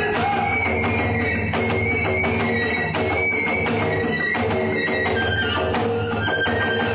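Iwami kagura festival music: a large taiko drum and small hand cymbals beat a steady, driving rhythm under a high bamboo flute melody.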